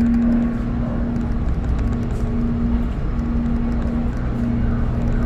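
Low, steady engine rumble of a large ferry, with a humming drone that drops out briefly and returns several times. A second, deeper hum joins about four seconds in.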